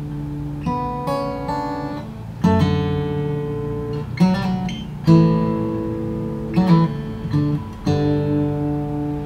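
Martin D-18 CW Clarence White dreadnought acoustic guitar being played: a run of picked notes and chords, each left to ring, with the strongest accents about two and a half, five and eight seconds in.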